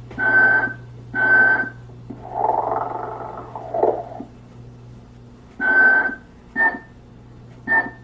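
Telco animated Mrs. Santa Claus decoration playing recorded snoring: a series of snores with a thin whistle on top, a longer breathy one in the middle, and two short ones near the end, over a steady low hum.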